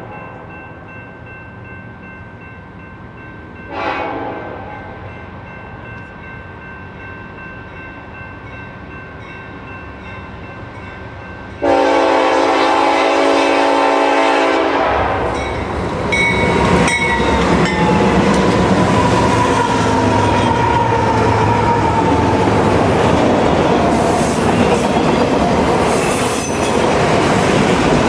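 Nathan Airchime K5LLA five-chime locomotive horn sounding faintly at a distance, with a short toot about four seconds in. About twelve seconds in, a loud, close blast lasts about three seconds. Then the train passes close by with loud rumbling and wheel clatter.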